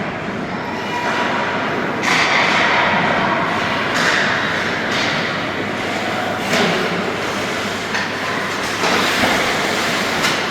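Ice hockey play: a steady scraping hiss of skate blades on ice, broken by several sharp knocks of sticks and puck.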